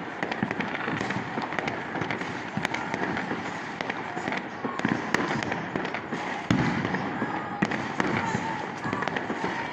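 Fireworks and firecrackers going off without pause, a dense crackle of many overlapping bangs, with a heavier burst about six and a half seconds in.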